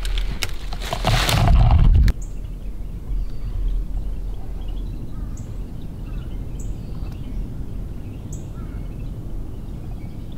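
A loud noisy rush for about the first two seconds, cutting off abruptly. Then birds chirp faintly several times, short high calls a second or so apart, over a steady low rumble.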